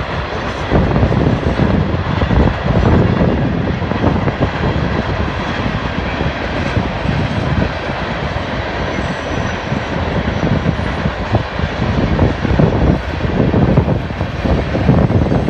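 Freight train's covered hoppers and autorack cars rolling past, a steady low rumble of steel wheels on rail with irregular clatter and knocks throughout.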